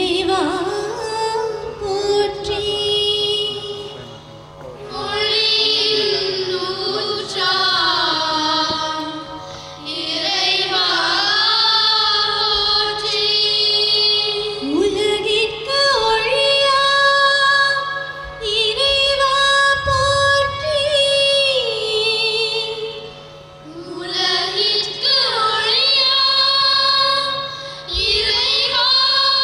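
A high voice singing a slow melodic song in long phrases with held, wavering notes, over a steady low drone.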